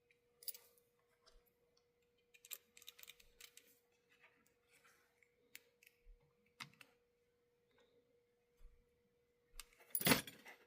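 Small hard clicks and taps of tiny model-locomotive parts and hand tools being handled on a workbench, with a louder rattling clatter about ten seconds in.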